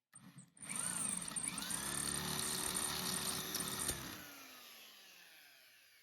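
Electric drill running with its bit against the hole in a tiller blade for about three seconds, then spinning down slowly after the trigger is let go. The bit makes no headway: the blade is hardened steel.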